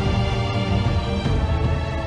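Instrumental background music with sustained chords over a heavy bass.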